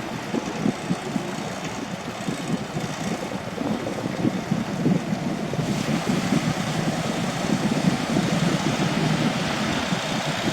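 Boat engine running steadily, mixed with wind and water noise; the hiss grows a little stronger about halfway through.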